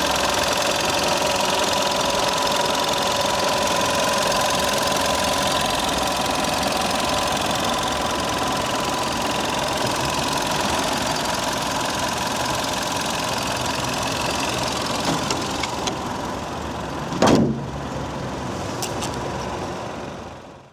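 Skoda Octavia II's 1.4 TSI turbocharged four-cylinder petrol engine idling steadily, heard close up under the open bonnet. About seventeen seconds in, a single loud thud as the bonnet is shut, after which the engine sounds quieter.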